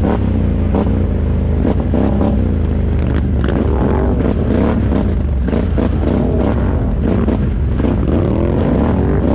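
ATV engine running under way, its pitch rising and falling over and over as the throttle is opened and eased.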